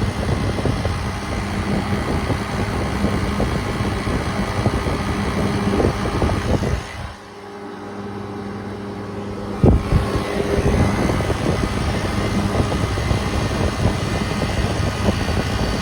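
Walk-in cooler's air-cooled condensing unit running, with the compressor and the condenser fan going and a steady hum. The fan has come on under its fan cycle control as head pressure rises, showing the control works. The noise drops sharply for a couple of seconds about seven seconds in, and there is a single knock near ten seconds.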